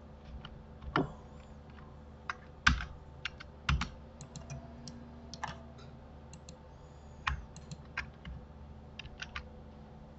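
Computer keyboard keys being pressed one at a time: scattered, irregular single clicks, about two a second.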